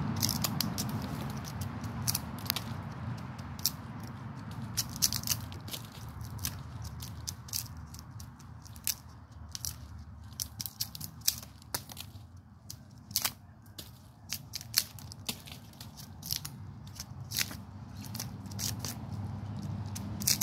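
A knife blade cutting and prying into pine bark, making an irregular run of sharp cracks, crunches and scrapes as pieces of bark break away. A low steady rumble sits underneath.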